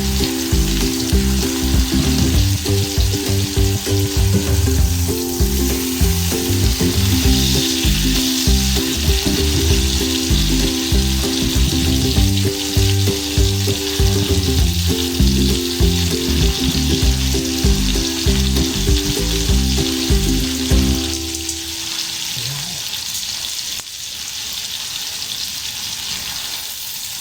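Ribeye steak sizzling in butter in a frying pan, a steady hiss throughout. Background music plays over it and drops out about three-quarters of the way through, leaving the sizzle alone.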